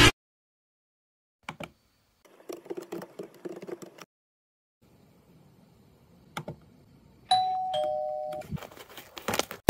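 A two-note ding-dong doorbell chime, the second note lower, about seven seconds in, after a few faint knocks and scuffles.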